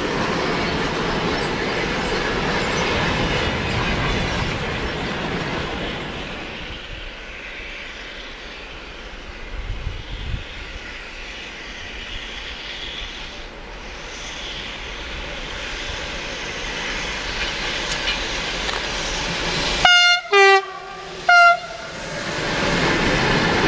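Electric freight train running past on the rails: steady wheel rumble and clatter of the wagons, loudest at the start and again near the end. About twenty seconds in, a train horn gives three short blasts, each falling slightly in pitch.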